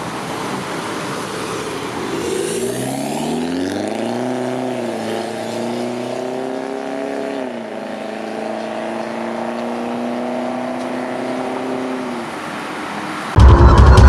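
Chevrolet Cruze 2.0 VCDi four-cylinder turbo-diesel through an aftermarket exhaust, accelerating: after some traffic noise the exhaust note climbs in pitch, then holds steady with a brief dip partway. Loud music cuts in near the end.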